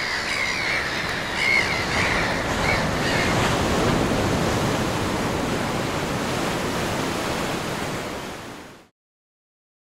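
Ocean surf washing onto a beach, a steady rushing noise, with a few brief high wavering cries over the first three seconds. It cuts off suddenly near the end.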